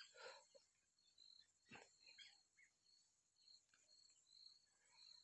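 Near silence: faint room tone with faint, short, high-pitched chirps in the background and a soft click about two seconds in.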